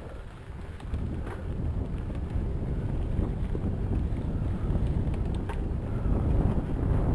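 Wind rushing over the microphone of a camera riding on a mountain bike on a dusty dirt trail, with the bike's rattle and a few sharp clicks; the rush grows louder toward the end.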